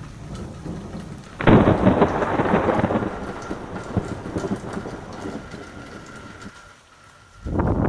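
A clap of thunder breaks about a second and a half in, then rumbles and fades over several seconds, with rain falling steadily underneath. A second thunderclap breaks near the end.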